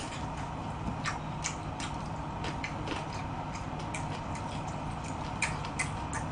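Close-miked chewing of jokbal (braised pig's trotters): irregular wet clicks and smacks of the mouth, a few each second.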